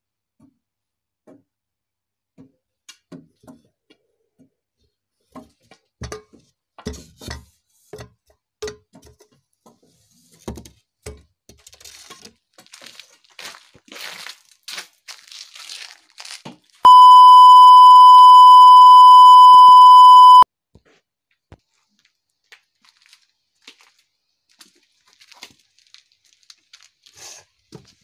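A loud electronic beep held at one steady pitch for about three and a half seconds, a little past the middle. Around it are scattered knocks and footsteps, and a few seconds of crunching and crackling just before the beep.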